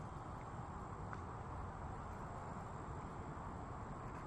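Faint, steady ambience of insects: a thin, even high-pitched drone over a low rumble.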